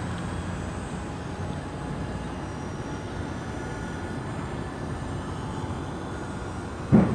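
GWS Me-262 radio-control model jet flying overhead, its motors a faint steady whine over wind noise on the microphone. Right at the end comes a sudden loud low thump.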